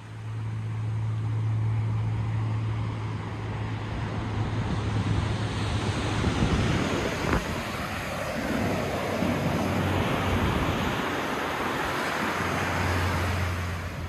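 Ocean surf breaking and washing up a sandy beach, with wind rumbling on the microphone; the wash of the surf swells in the second half.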